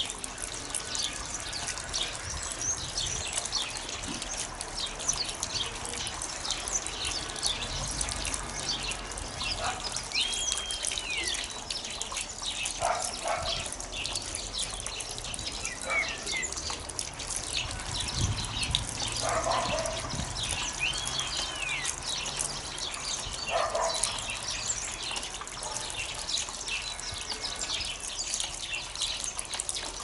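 Many sparrows chirping busily and continuously, a thick chatter of short high chirps. Twice a clear whistled note holds and then falls.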